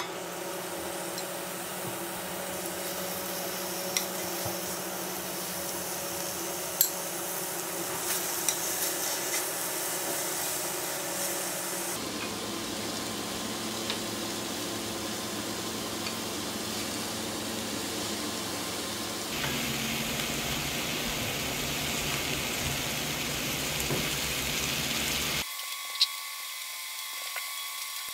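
Makchang (intestine) pieces sizzling and frying in a hot pan, a steady crackling hiss, with a few sharp clicks.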